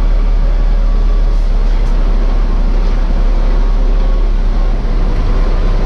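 Scania truck's diesel engine running, a steady low rumble.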